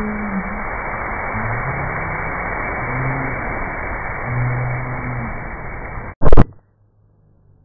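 Loud, steady rush of a large water spray blasting and splashing down, with some low humming tones beneath it. It cuts off suddenly about six seconds in, followed by a split-second, very loud burst of noise.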